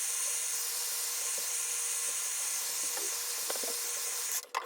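Heat gun blowing a steady hiss of hot air with a faint steady motor hum, heating the glued edge of a phone's back glass to soften the adhesive. The hiss cuts off shortly before the end.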